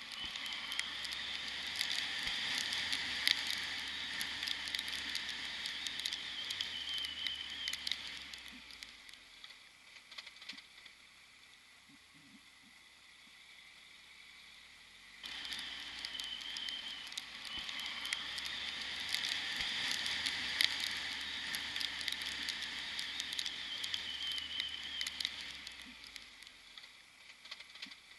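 Rain and wind crackling on the microphone of a camera mounted on a motorcycle, with a faint low engine hum underneath. The noise drops away for several seconds, then returns abruptly about halfway through.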